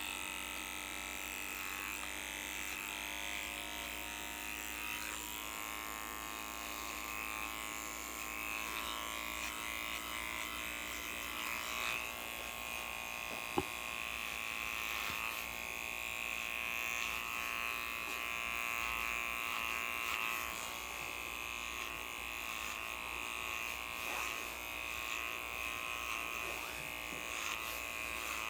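Electric hair clippers running with a steady buzz as they cut hair, with one sharp click about halfway through.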